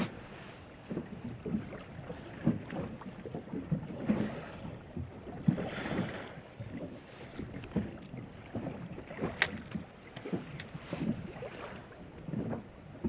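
Small waves lapping against the side of an inflatable boat in irregular slaps, with wind on the microphone. A couple of sharp clicks come about two-thirds of the way through.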